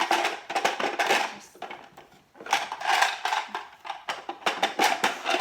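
Pasta-maker die attachments clicking and clattering as they are handled and fitted back into their storage holder. There are two stretches of rapid rattling, with a short pause about two seconds in.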